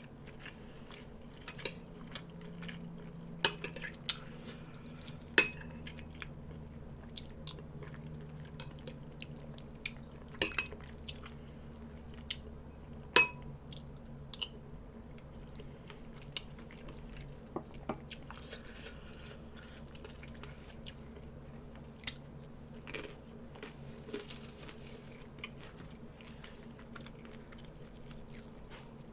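Someone chewing food, with a few sharp clinks of cutlery against a dish, about four of them standing out.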